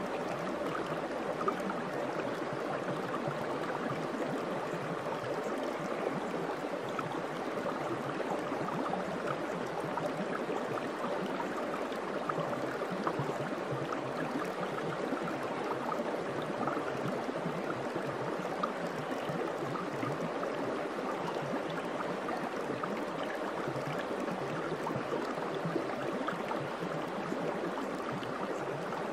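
Steady sound of running water, like a babbling stream, with small crackles throughout.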